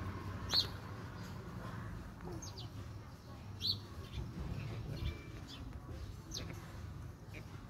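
Birds chirping: short, high, falling calls every second or so, the loudest about half a second in, over a steady low background rumble.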